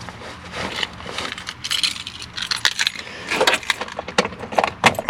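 Irregular clicks and rattles of hard parts being handled at a truck's loose door panel, such as its wiring connector being fitted.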